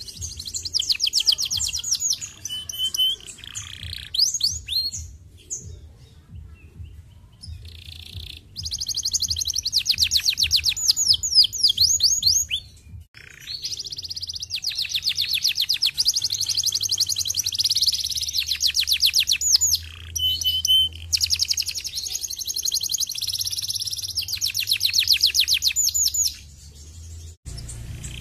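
Canary singing long phrases of very fast trills, with short pauses between phrases.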